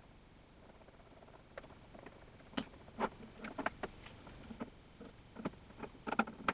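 Light clicks and taps of metal parts being handled: a mounting bracket being fitted onto a ball screw's ball nut on a tabletop. The taps are irregular, start a couple of seconds in and bunch together near the end.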